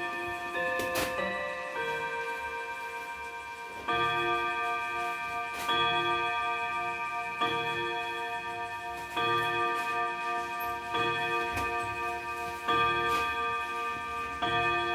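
Mauthe mantel clock chiming on five gong rods: the last notes of its chime tune in the first two seconds, then, after a short pause, the hour strike, seven ringing multi-note strikes about every two seconds that ring on between blows.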